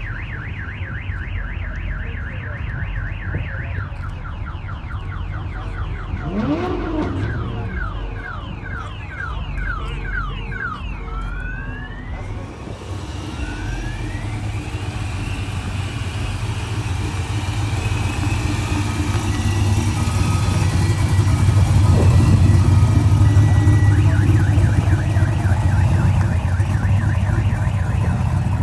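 A car alarm cycling through its tones: fast repeated chirps, then rising whoops about twice a second, stopping about twelve seconds in. A Chevrolet pickup's engine then takes over with a deep rumble that grows louder for about ten seconds as the truck drives past.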